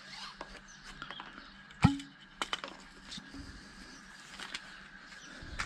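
Scattered knocks and clicks, the loudest a sharp knock about two seconds in followed by a brief low ring, with a faint steady hum underneath.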